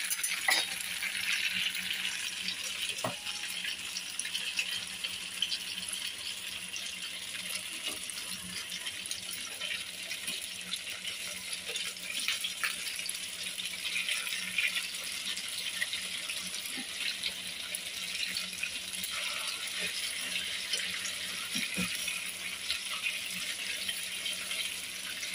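Tofu-and-egg patties sizzling steadily in hot oil in a metal pan, with a few brief scrapes and taps of a metal spatula against the pan.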